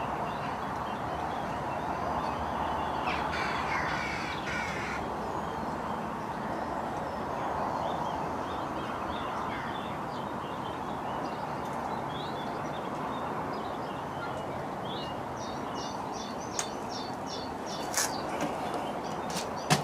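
Birds calling outdoors over a steady rush of wind noise, with a burst of repeated calls a few seconds in and short high chirps later. A few sharp clicks come near the end.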